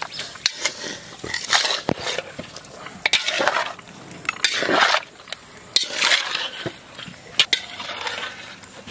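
A metal utensil stirring chunks of raw vetki fish coated in salt and turmeric in a large aluminium bowl: repeated wet scraping sweeps about every second and a half, with sharp clinks of metal against the bowl.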